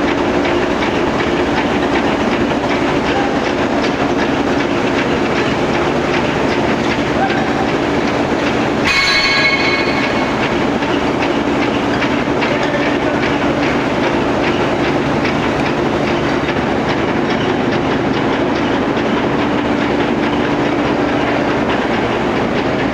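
Forging-line machinery running: a loud, steady clatter of rapid clicks over a low hum. About nine seconds in comes a brief, high metallic squeal.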